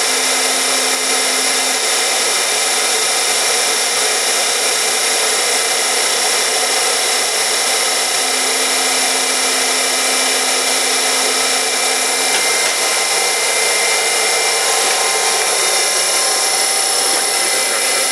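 Heald 271 Gage-Matic internal grinder running: the high-speed grinding spindle gives a steady high-pitched whine over the hum of the hydraulics as the table strokes in and out. A lower hum joins in twice, at the start and again for about four seconds near the middle.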